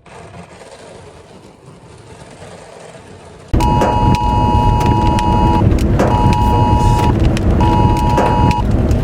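A Wireless Emergency Alert tone for a tornado, from a phone, cutting in suddenly about three and a half seconds in over loud noise: one long two-tone blast of about two seconds, then two shorter one-second blasts with brief gaps. Before it, only faint noise.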